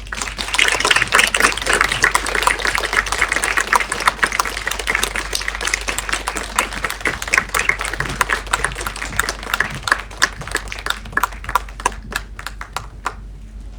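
Audience applauding, dense at first, then thinning to a few scattered claps before stopping near the end.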